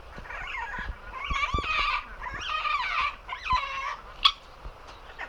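Amazon parrot squawking in a tantrum: four long, harsh calls that bend up and down in pitch, followed by a single sharp click about four seconds in.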